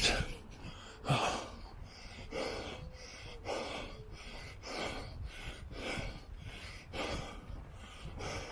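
A worn-out runner breathing hard, a heavy breath about once a second.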